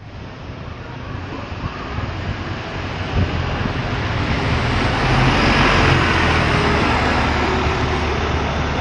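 Volvo B9TL double-decker bus pulling away from a stop and driving past, its diesel engine running and tyres rolling. It grows louder as the bus draws alongside, is loudest about five to six seconds in, then eases slightly as it moves off.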